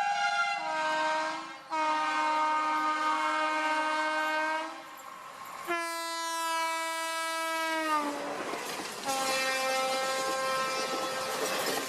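Train horn sounding a series of chord blasts: a short one, a long one of about three seconds, then another whose pitch falls at its end. Then the rumble and wheel clatter of a moving train come in under a final blast.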